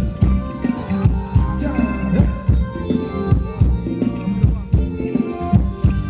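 Thai ramwong dance music from a live band, a steady drum beat under held instrument notes.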